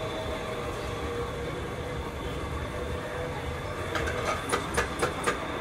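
Barista working at an espresso station: a steady mechanical hum throughout, then about four seconds in a quick run of six sharp taps, about four a second.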